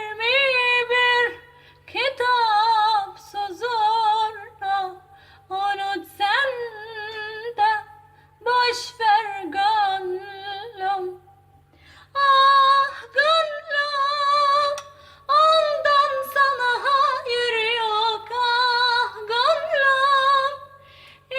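A high female voice singing a Kurdish melody unaccompanied, in ornamented phrases with a wavering vibrato and short breaks between them, including a longer pause about halfway through.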